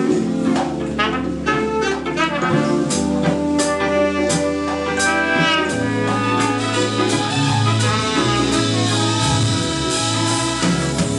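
A band playing an instrumental passage in a jazz style, with horns over a bass line and drum hits.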